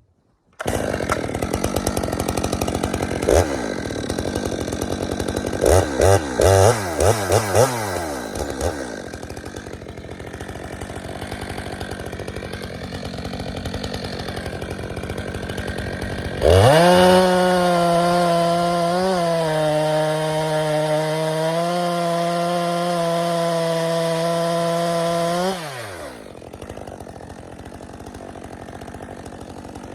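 Stihl 462C two-stroke chainsaw with its stock muffler, running. It starts sounding suddenly about half a second in and is revved in quick blips between about 5 and 8 seconds. About 16 seconds in it is held at full throttle with a steady note for about nine seconds, then drops back to idle.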